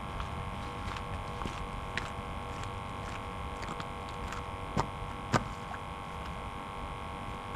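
Steady electrical hum made of several fixed tones, with a few sharp clicks; the two loudest come close together about five seconds in.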